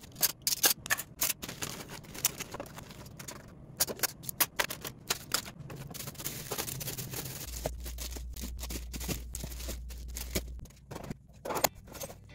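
Disposable plastic forks and spoons and clear plastic organizer bins clicking and clattering as they are handled and set in place, a quick run of sharp taps and rattles. A low hum runs for about three seconds past the middle.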